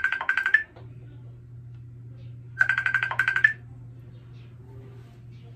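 Outgoing call ringing from a laptop while the call connects: two identical rings about two and a half seconds apart, each about a second of fast pulsing around one tone that ends in a short rising blip.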